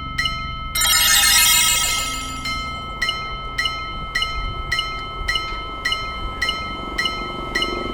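Japanese railroad crossing warning bell ringing steadily, about two strikes a second. About a second in, a louder shimmering metallic ringing comes in over it and fades away within about a second and a half, with a low rumble underneath.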